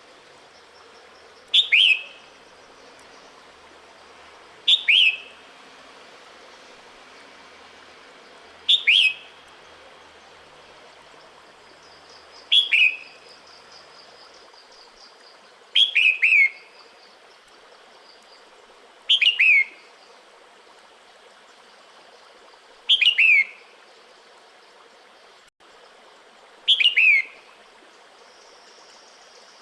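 Female red-whiskered bulbul calling, a short, quick falling call repeated eight times at gaps of about three to four seconds: the breeding-season call a female gives to draw a male.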